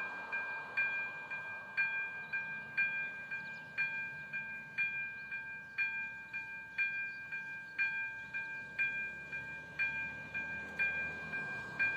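Railway level-crossing warning bell ringing, about two strokes a second with every other stroke louder, each stroke a clear two-tone ding: the crossing's warning is active, signalling that a train is approaching.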